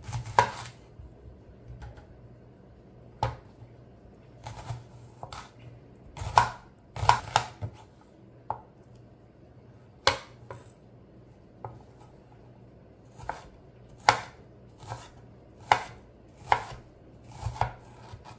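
Chef's knife cutting a red onion on a bamboo cutting board: irregular sharp knocks of the blade striking the wood, roughly one a second, some in quick pairs, with short pauses between.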